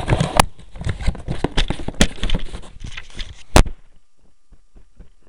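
Close handling noise of a cardboard box and its packaging: rustling with many sharp taps and knocks. A loud knock comes about three and a half seconds in, and after it only faint ticks remain.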